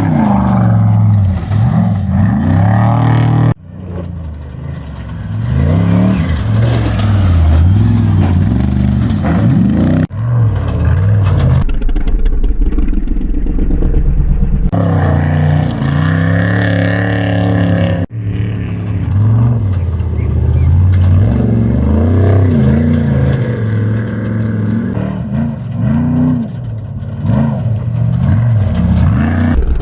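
Off-road race trucks and cars running at speed, their engines revving up and down in pitch as they drive past. The sound changes abruptly several times, from one vehicle to another.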